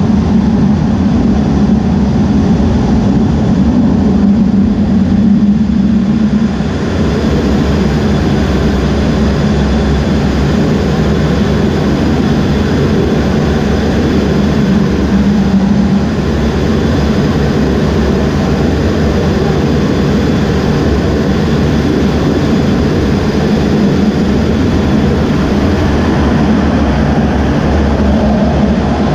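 Twin General Electric F414 turbofan engines of an EA-18G Growler running on the carrier deck, heard from the cockpit: a loud, steady jet drone with a low hum, easing slightly about six and a half seconds in.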